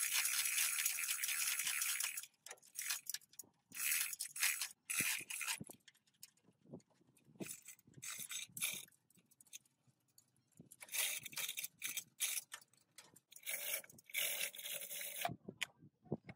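Manual chain hoist ratcheting, a fast rasp of clicks for about two seconds, then scattered metal clinks, chain rattles and scrapes from the hoist chains and hand tools around the engine being lifted out.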